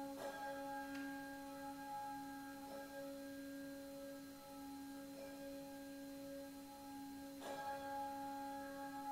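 Quiet, slow instrumental music: a held mid-low note with its overtones, re-sounded every couple of seconds, under soft ringing struck notes, the clearest about seven and a half seconds in.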